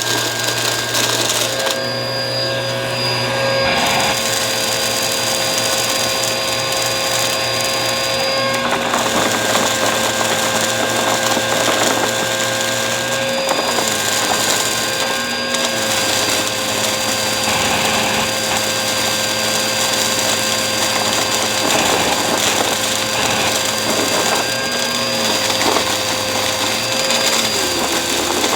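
Bissell vacuum cleaner running steadily: a continuous motor whine over a rushing air noise, its pitch shifting slightly every few seconds.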